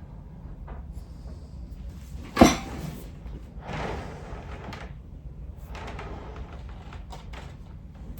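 Handling noises from wiring a bonsai tree: small clicks and brief rustles, with one loud sharp knock about two and a half seconds in and a short scraping rustle a second later.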